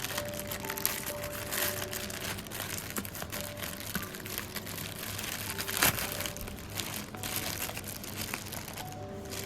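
Crinkling and rustling handling sounds, with a sharper crunch about six seconds in, over soft background music of gentle held notes.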